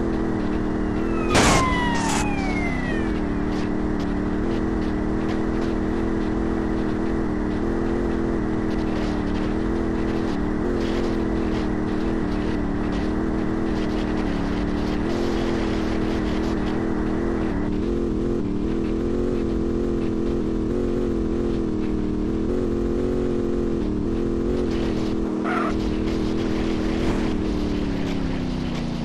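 A motor running steadily with a slightly wavering pitch that sinks a little near the end, with a couple of sharp clicks near the start.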